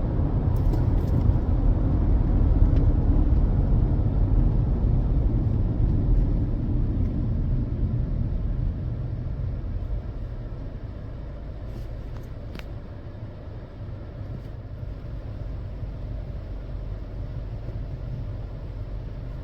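Low, steady vehicle rumble that eases off about ten seconds in, with a couple of faint ticks partway through.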